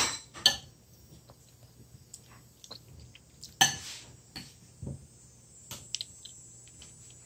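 A metal spoon clinking and scraping against a bowl as cooked potato chunks are spooned out onto pastry dough: a handful of separate clinks, the loudest about three and a half seconds in.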